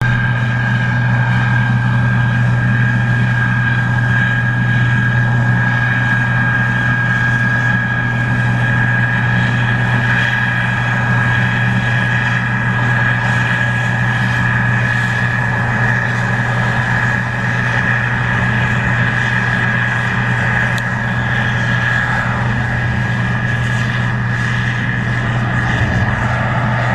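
Case IH 2388 Axial-Flow combine running steadily while harvesting corn: a constant low engine hum with a steady high whine above it.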